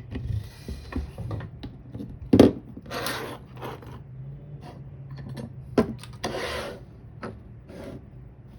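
Small metal lock and tools being handled: scattered clicks and knocks with a few short scrapes, the loudest knock about two and a half seconds in.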